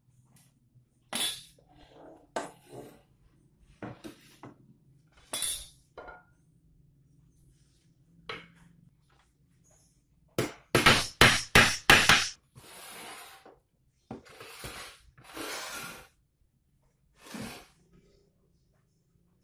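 Sharp knocks and clinks of hard objects, with a quick run of about six loud strikes a little past halfway, then several short rasping sounds.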